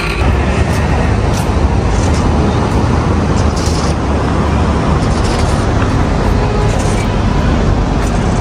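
Loud, uneven low rumble of outdoor noise that starts as a glass door is pushed open, with wind buffeting the microphone.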